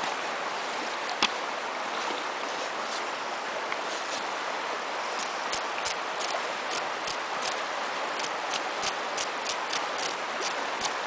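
Knife blade scraping scales off a dead chinook salmon's flank, heard as a string of sharp ticks, about three a second, from about five seconds in. The river flows steadily behind it.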